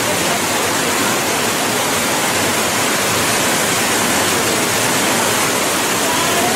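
Water pouring steadily over a low concrete weir into a river pool: a dense, even rush of white water at close range.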